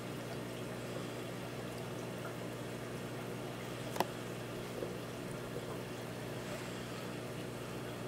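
Steady electrical hum of aquarium equipment, a pump or filter, under a faint trickle of water, with one sharp click about four seconds in.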